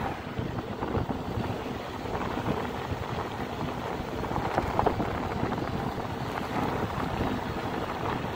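Wind buffeting the microphone of a moving vehicle, over its steady road noise.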